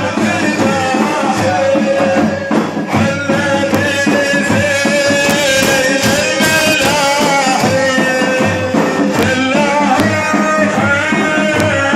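Religious praise singing (madih): a solo voice holding long, wavering notes over steady hand-drum beating.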